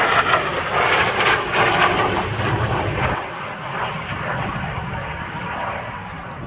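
Aircraft engine noise, a dense rush with a low rumble, loudest in the first two seconds and then slowly fading, as from an aircraft passing.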